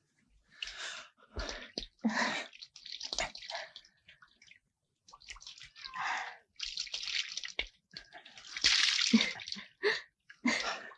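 Water poured from a jug over a person sitting in a tub, splashing in irregular bursts, the longest and loudest pour about two thirds of the way through.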